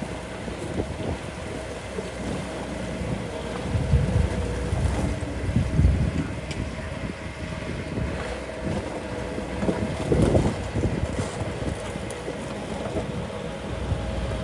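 Komatsu D37P crawler bulldozer's diesel engine running with a steady whine over it; the low rumble swells briefly about four, six and ten seconds in.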